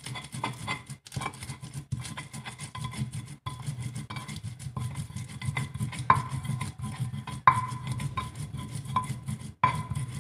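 Stone pestle grinding spice paste in a stone mortar (Indonesian cobek and ulekan): continuous scraping and rubbing, stone on stone. A few sharper knocks ring out briefly, about six and seven and a half seconds in and again near the end.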